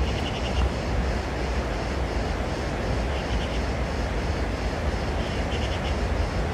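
Steady low rumbling background noise. Three faint, short rattles of four or five quick ticks come from a bird: one near the start, one about three seconds in and one near the end.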